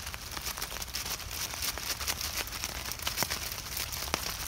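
Plastic zip-top bag crinkling as dough is squeezed and kneaded inside it by hand, with scattered sharp crackles over a steady hiss.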